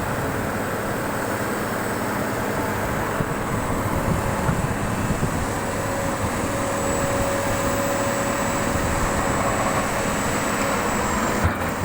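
Hydraulic excavator's diesel engine running steadily, with a faint steady whine over it.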